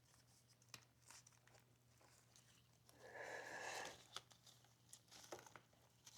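Mostly near silence with faint scattered clicks of a motorcycle roller chain being threaded around the sprocket, and a brief louder scraping rustle about three seconds in.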